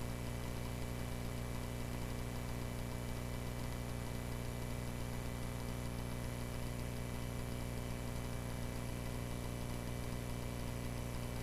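Cessna 140A's light-aircraft piston engine droning steadily in flight, an even, unchanging hum.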